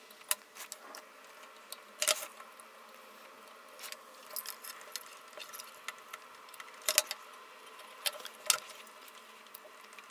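Scattered light clicks and taps of a circuit board and soldering iron being handled while new capacitor leads are soldered in. The louder knocks come about 2 s in, twice close together near 7 s, and again near 8.5 s.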